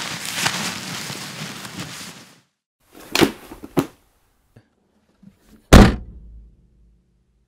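A steady rushing noise cuts off suddenly, followed by two short knocks and then a loud, heavy thud with a low, booming tail.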